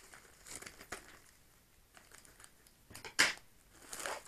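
Paper mailing envelope crinkling as it is cut with scissors and pulled open by hand: a few short crinkles, a quiet stretch, then a louder crackle about three seconds in.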